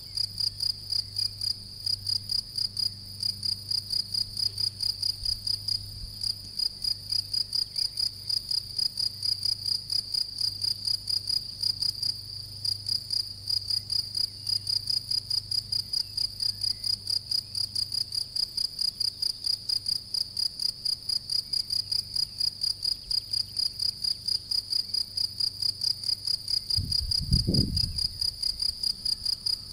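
European field cricket singing its calling song: a steady, evenly spaced run of high, pure chirps, about two to three a second. Near the end a brief low thump cuts in.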